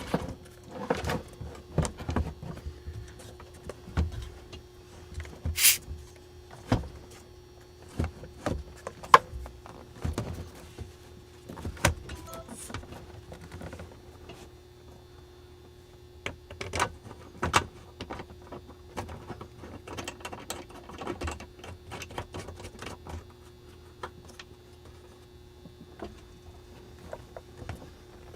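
Scattered clicks, taps and rattles of hands working a wiring harness under a truck dash and fastening it with zip ties, with one brief sharp rasp about six seconds in. A faint steady hum runs underneath.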